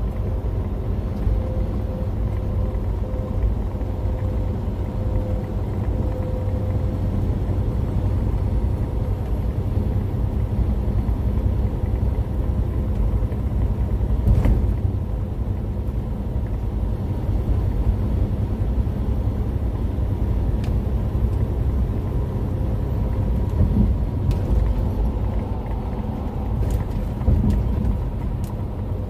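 Steady engine and road drone inside a moving vehicle's cab, with a few faint clicks about halfway through and near the end.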